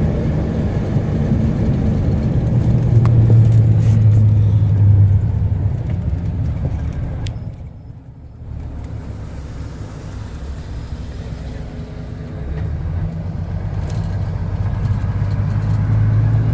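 A motor vehicle running with a low engine and road rumble. It swells loudest a few seconds in and again near the end, and drops away briefly about halfway through.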